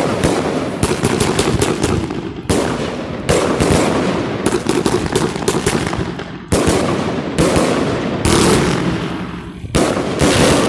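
Fireworks going off overhead in quick succession: a sudden loud bang every second or two, with rapid crackling reports in between.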